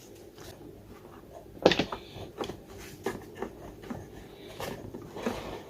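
Scattered clicks and knocks of an 8-gallon vacuum cleaner's parts being handled and fitted back together, the loudest about one and a half seconds in.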